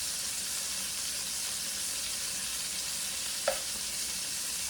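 Tri-tip steaks sizzling steadily in a hot frying pan, with one brief tap about three and a half seconds in.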